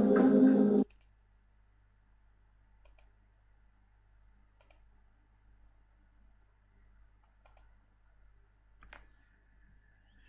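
Background music cuts off suddenly about a second in. Then comes near silence broken by four faint, sharp computer mouse clicks, the last one the loudest.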